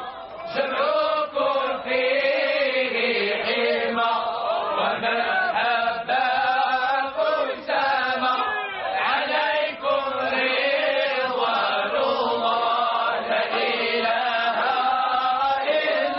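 Sufi devotional chant (samaa): voices singing a continuous, melodic chant with long held and bending notes.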